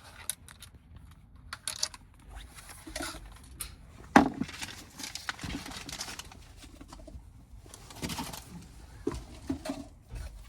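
Hands working with small parts and packaging: scattered clicks and rustles, with one sharper knock about four seconds in and two longer scraping rustles after it.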